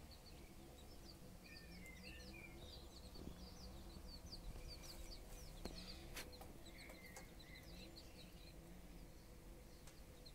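Faint, many-voiced peeping of Appenzeller Spitzhauben chicks, short high peeps in quick succession, with the broody hen giving low, soft clucks at intervals.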